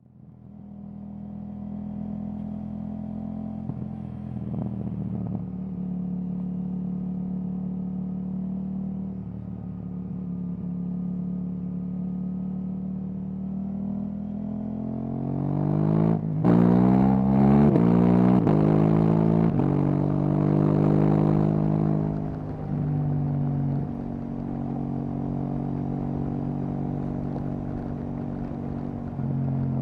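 KTM 790 Duke's parallel-twin engine through an Akrapovic exhaust, running at a steady cruise. About halfway through the revs rise, cut out for a moment, then it accelerates hard through several quick upshifts, the pitch climbing and dropping with each gear, before it settles back to a steady cruise.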